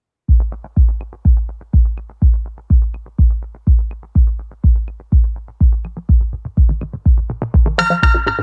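Electronic intro music: a steady deep kick drum beating about twice a second, with a burst of synth chords and a cymbal coming in near the end.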